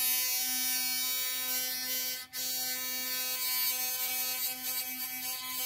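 Philips Sonicare DiamondClean electric toothbrush's sonic drive running bare out of its case with a steady buzz, cutting out for a moment a little over two seconds in and then running on. It still makes some noise, which the repairer puts down to the magnet sitting too close to the electromagnet.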